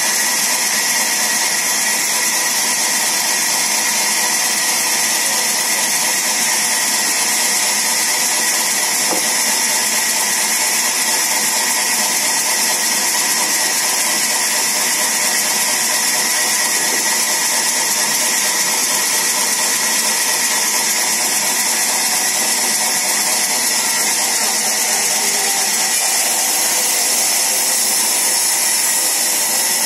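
Sawmill band saw running steadily, a constant machine drone with a loud high-pitched hiss.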